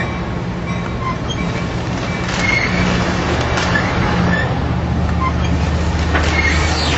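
Amtrak Pacific Surfliner bi-level passenger cars rolling slowly past on departure: a steady rumble of steel wheels on rail with a low hum and a few sharp clicks.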